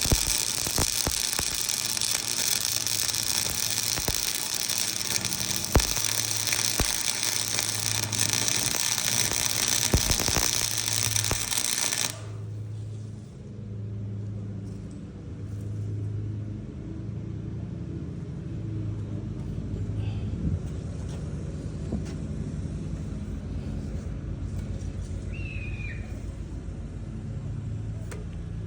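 Small engine running steadily, with scattered clicks and a loud hiss over it. About twelve seconds in the sound cuts abruptly to a quieter, duller stretch with a steady pulsing low hum.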